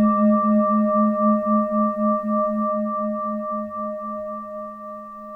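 Singing bowl ringing after a strike, several overtones sounding together with a steady wah-wah pulsing as the tone slowly fades.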